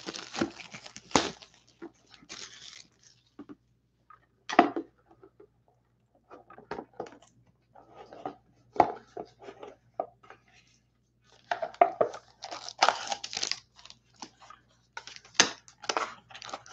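Cardboard trading-card box and its plastic wrap being handled and opened by hand: irregular rustles, scrapes and light knocks in scattered bursts with short gaps.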